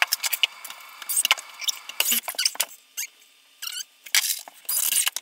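Wooden 1x4 board being positioned against wall studs and a metal spirit level being laid on it: a busy run of short clicks, taps and scrapes with brief pauses.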